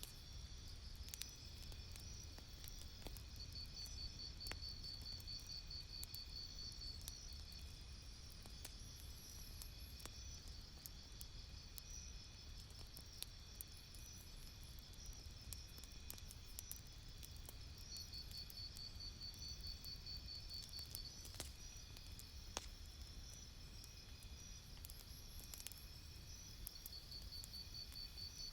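Campfire crackling, with scattered sharp pops over a low steady rumble. Insects trill in high pulsed spells of a few seconds that come and go.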